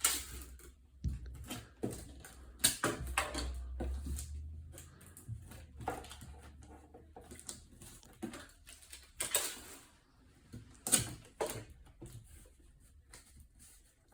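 Tape being pulled off the roll in short noisy rips and pressed down onto a cardboard box to seal its top flaps, with handling knocks in between.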